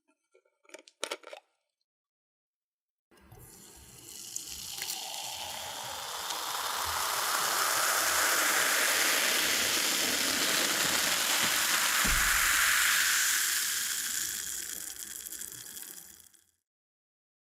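Cola being poured, with its fizzing hiss building up over a couple of seconds, holding steady, then dying away. A few small clicks come about a second in, before the pour.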